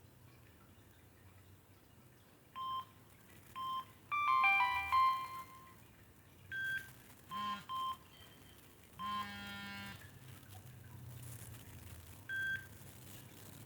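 Samsung SGH-B100 mobile phone playing a ringtone through its small speaker: short electronic beeps and tone runs in an irregular pattern, loudest in a cluster of tones about four seconds in, with a quick run of tones about nine seconds in.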